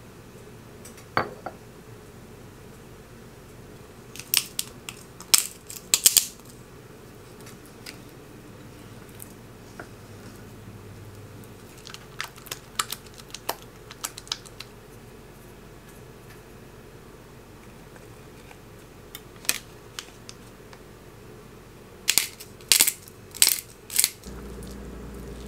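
Kitchen utensils clicking and tapping against bowls during hand mixing, in small clusters of sharp clicks separated by quiet stretches, with a run of quick clicks near the end. A low steady hum starts just before the end.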